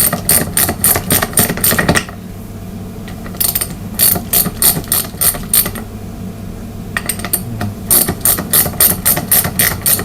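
Hand ratchet clicking in three runs of quick clicks, about five a second, as the bottom fitting of a KTM fork leg is turned. The fitting just spins with the wrench instead of coming undone.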